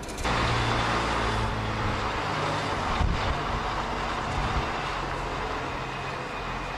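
Diesel engine of a semi tractor pulling a tanker trailer at low speed, a steady hum that slowly fades as the truck moves away. A brief clunk comes about three seconds in.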